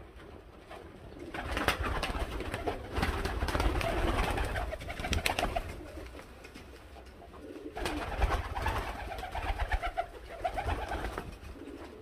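Uzbek two-crested pigeons cooing in a loft, in two bouts: the first starts about a second in, the second about eight seconds in.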